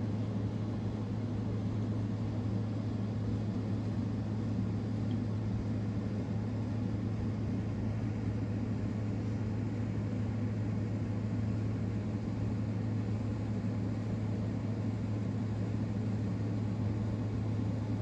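A steady low machine hum at a constant level, with no bird calls standing out.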